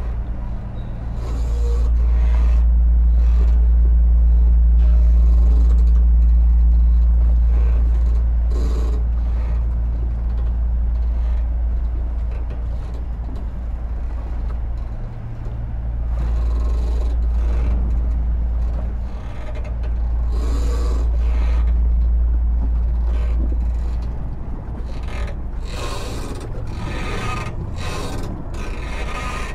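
Deep, continuous rumble of heavy vehicle engines, swelling and easing every few seconds as they pass, with scattered metallic scrapes and clanks, busiest near the end.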